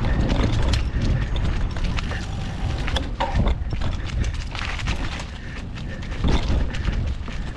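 Mountain bike riding over a rough trail, heard from a handlebar-mounted camera: wind buffeting the microphone as a heavy low rumble, with the bike rattling and knocking irregularly over the bumps.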